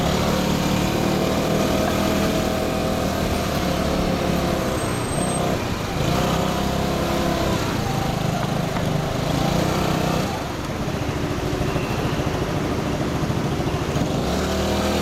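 Motorcycle engine heard from the rider's seat, running in stop-and-go traffic, its pitch rising and falling several times as the throttle is opened and eased off.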